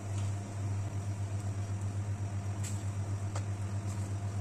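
A steady low machine hum with a quick, even throb, and a few faint soft knocks as pieces of jack fish are laid into a clay pot of curry.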